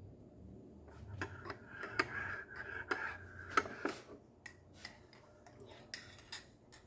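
A spoon clinking against a cup while stirring: a run of irregular clinks, the cup ringing faintly under the first few.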